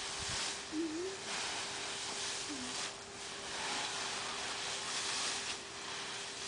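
Dry fallen leaves rustling as a garden rake and small shovels scrape and push through a leaf pile, in repeated swishes about once a second.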